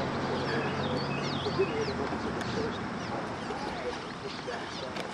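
Many birds chirping and calling in short rising and falling notes, with people's voices in the background and a low hum that fades out about two seconds in.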